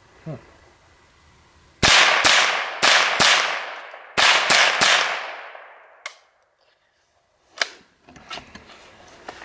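Ruger 10/22 firing .22 Long Rifle in quick semi-automatic succession: about seven sharp cracks in two quick groups, each ringing out behind. The string breaks off and two lighter clicks follow, a feeding stoppage with the BX-25 magazine that the shooter can't pin on the gun, the ammo or the magazine.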